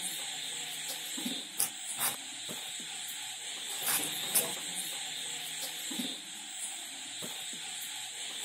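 Raw jackfruit being sliced against a floor-mounted upright blade: several short, sharp cutting sounds over a steady hiss.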